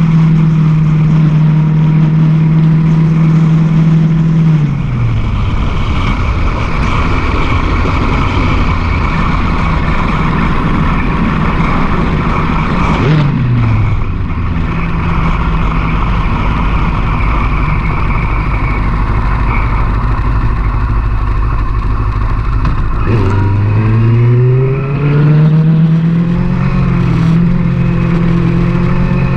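Sport motorcycle engine under way with wind rushing past. The engine holds a steady note, drops as the throttle closes about four and a half seconds in, drops again around thirteen seconds, then climbs in pitch as the bike accelerates about twenty-three seconds in.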